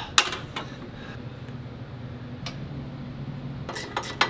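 Sharp metallic clicks and clinks of metal side plates being handled and fitted onto a Yarbo robot snowblower: a single click just after the start and a quick cluster near the end, over a steady low hum.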